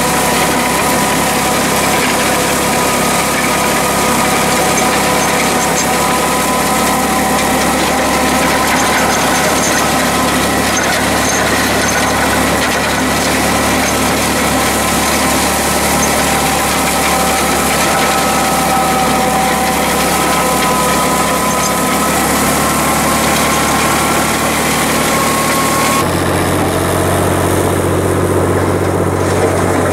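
Long 510 tractor engine running steadily under load while it drags a box blade through gravel, heard close up at the blade and hitch. About 26 seconds in the engine is heard from farther off, lower and duller.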